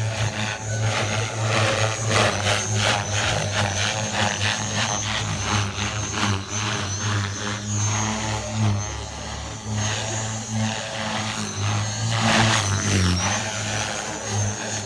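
Align T-Rex 470LT electric RC helicopter in flight. The main rotor, at a headspeed of about 3200 rpm, makes a steady low buzz under a thin high motor whine that wavers in pitch. The sound swells and eases as it is manoeuvred, with a louder rushing pass about twelve seconds in.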